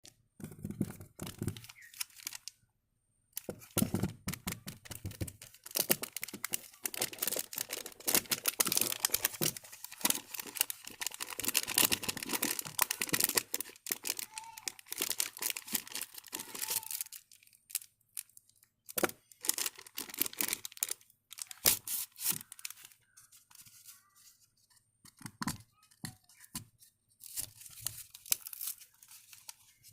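Packaging being torn open and crinkled by hand: a long stretch of dense tearing and rustling, then scattered separate rips and crinkles in the last part.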